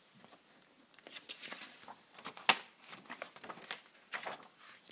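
Paper or cardboard crinkling and tearing: irregular crackles and clicks starting about a second in, the sharpest snap about halfway through.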